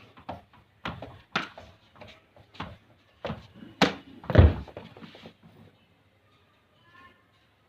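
Cricket bat repeatedly striking a ball in a knocking drill: sharp knocks about twice a second, the loudest a deep thud about four and a half seconds in, stopping about five and a half seconds in.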